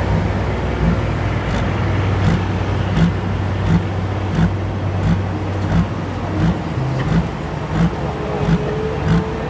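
A heavy engine running steadily at low speed, with a regular pulse about every three-quarters of a second.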